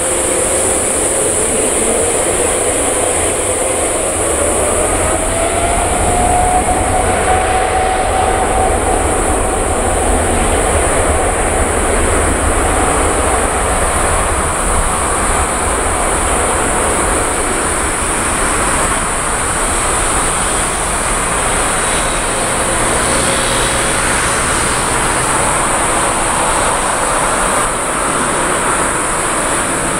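Boeing 787-10 airliner's jet engines running at taxi power as it moves onto the runway: a steady engine noise whose whine rises in pitch a few seconds in and then holds, with a steady high hiss above it.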